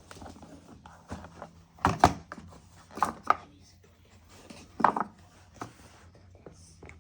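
Hard parts handled during PC assembly: a few sharp knocks and clicks, loudest as a close pair about two seconds in, then two around three seconds in and one near five seconds, over a faint steady low hum.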